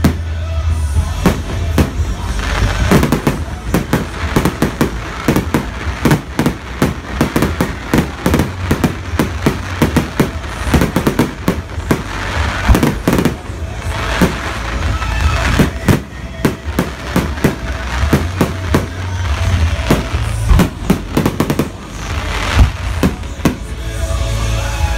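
Fireworks display: aerial shells bursting in quick succession, a dense string of bangs and crackles several times a second, with music playing underneath.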